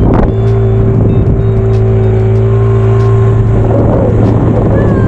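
Motorboat engine running at a steady speed, a constant droning hum.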